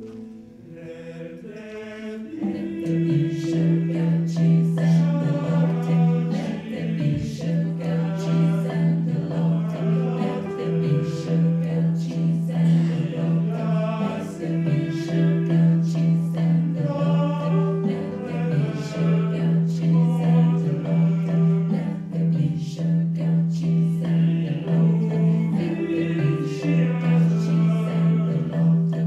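Mixed choir singing a contemporary choral piece. A low note is held steadily beneath moving upper voices. The opening is quieter, and the full choir comes in about two seconds in.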